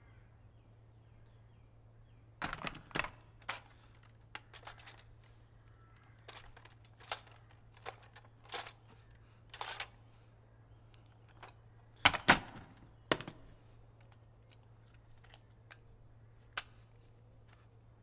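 Sparse soft clicks and knocks, spaced irregularly, over a faint steady low hum, with a sharper double knock about two-thirds of the way through. These are film Foley of quiet movement and handling in a tense scene.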